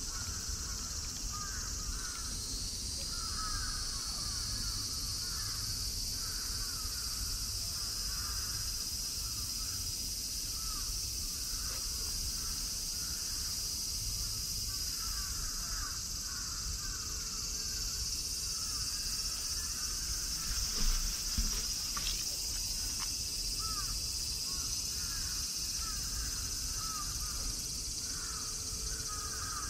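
Outdoor ambience of insects droning steadily and high, with a chorus of short chirping animal calls repeating about once a second over it, and a couple of brief soft knocks about two-thirds of the way through.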